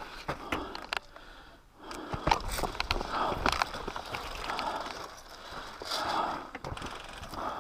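Footsteps crunching over rocky ground with gear rustling, in uneven scrapes about once a second. Scattered sharp clicks run through it.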